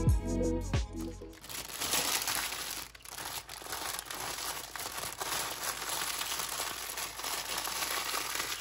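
Background music with a beat cuts off about a second in. After that comes a continuous crinkling of clear plastic packaging as bags of diamond-painting drills are handled.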